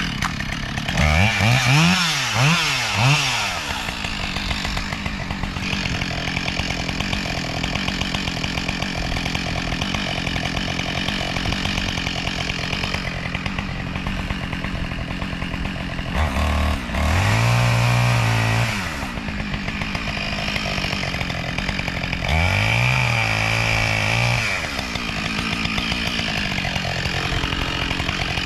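Husqvarna 572XP two-stroke chainsaw revved three times in quick succession, then running steadily at speed, with two long full-throttle surges later on. It is making the felling cut through a standing tree.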